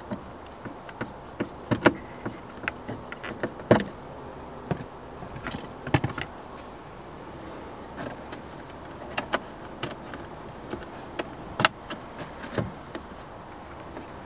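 Irregular small clicks and knocks of a hand screwdriver and plastic interior door trim being handled and pressed into place on a pickup's door panel, a few sharper snaps among them.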